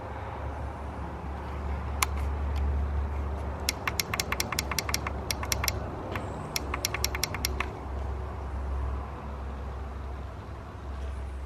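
Irregular runs of sharp clicks and ticks for several seconds, over a steady low rumble.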